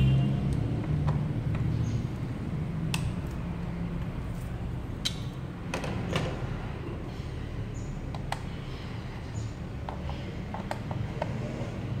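Scattered light clicks and taps of a socket and ratchet on the engine's coil-pack bolts, with a quick run of clicks near the end, over a steady low hum.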